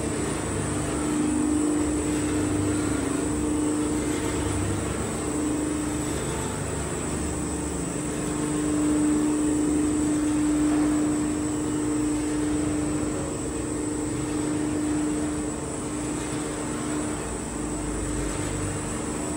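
GM-3000 five-press cold-press oil machine running: its geared electric motors and screw presses give a steady mechanical drone with a held hum that swells and fades slightly, and a faint high whine above it.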